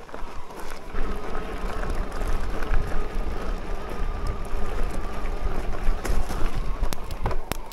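Riding noise from an electric mountain bike on a rough bridleway: wind buffeting the action camera's microphone and tyres rumbling over the track, with a faint steady whine from the e-bike's motor and scattered clicks and rattles, more of them near the end.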